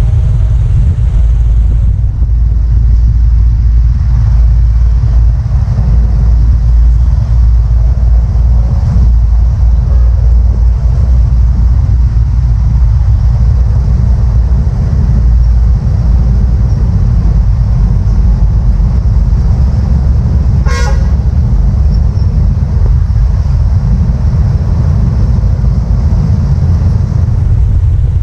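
Steady heavy low rumble of vehicles at a railway level crossing, with one brief horn toot about twenty seconds in.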